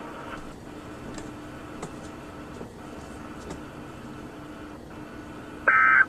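Open weather-radio channel hiss with a faint steady hum, then near the end a short, loud two-tone digital data burst: an EAS SAME End Of Message (EOM) burst closing the alert.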